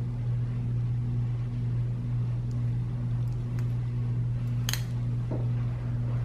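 A steady low background hum with a faint pulsing tone above it. A few faint instrument ticks, then one sharp click about three-quarters of the way through, fitting surgical scissors snipping a suture.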